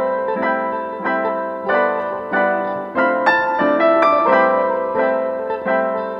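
Background piano music: a steady run of struck chords, each fading before the next.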